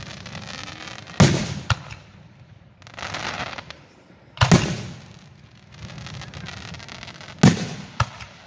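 Aerial firework shells bursting, three loud booms about three seconds apart, each followed by a smaller crack, with a hissing sound between the bursts.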